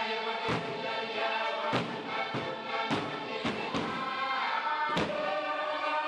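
Background music: voices singing over a steady drum beat, a little under two beats a second.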